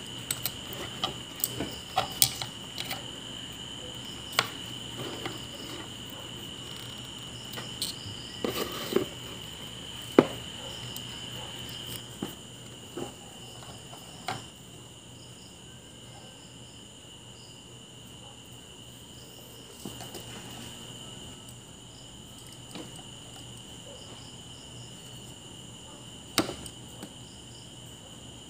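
Scattered clicks and taps of small tools and parts being handled on a workbench while a broken wire in the subwoofer is reconnected. They are busiest in the first half, with one more sharp click near the end, over a steady high-pitched drone.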